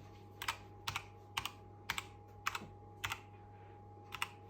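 Keys clicking on a Keychron K2 V2 mechanical keyboard: about eight sharp presses, roughly two a second, some in quick pairs, as the lighting key is pressed to cycle through the RGB light effects.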